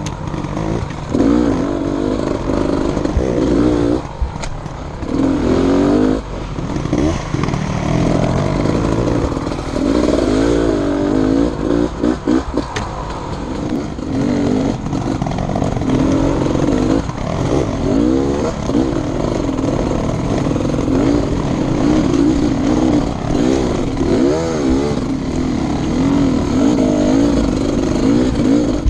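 Enduro motorcycle engine being ridden, revving up and falling back over and over as the throttle opens and closes every second or two, with a few brief dips and occasional knocks.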